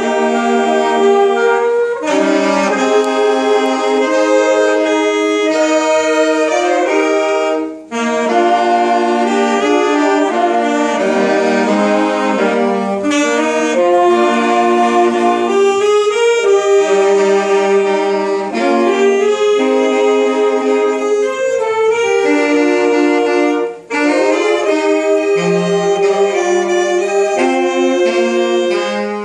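Saxophone ensemble playing a Christmas medley, several saxophones sounding sustained notes together in harmony. The playing breaks off twice for a moment between phrases, about a third of the way through and again near the end.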